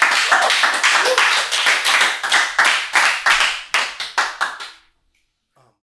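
A small audience clapping after a poem, the applause thinning out and stopping about five seconds in.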